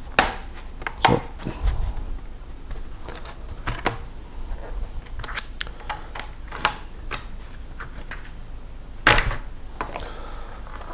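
Snap clips of an HP ProBook 455R G6 laptop's bottom cover clicking loose one after another as a plastic opening card is worked along the seam, with a louder snap about nine seconds in.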